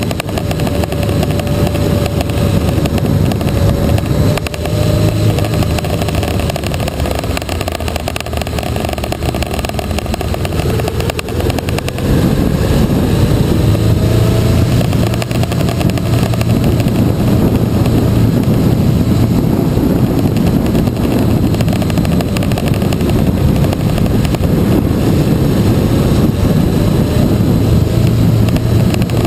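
Motorcycle engine running under way with wind noise on the bike-mounted microphone. It gets louder about twelve seconds in, with the engine pitch gliding up and down.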